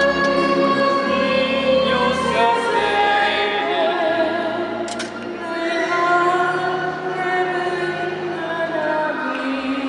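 A choir sings a slow religious song in long held notes, several voices together with some vibrato. There is a brief click about five seconds in.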